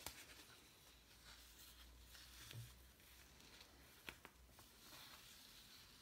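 Faint rustling of a sheet of paper being handled and slid over a cloth-covered table, with a few light clicks, the sharpest about four seconds in.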